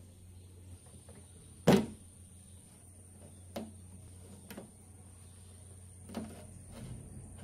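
Old rubber window weatherstrip being pulled off the door of an Isuzu D-Max: one sharp snap about two seconds in as the strip pops free of the door flange, then a few lighter clicks as it is worked loose and lifted away.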